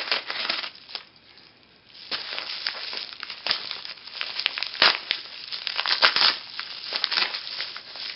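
Gloved hands tearing open a padded paper mailer envelope: paper crinkling and ripping. There is a brief lull about a second in, then steady crinkling with a couple of sharper rips near the end.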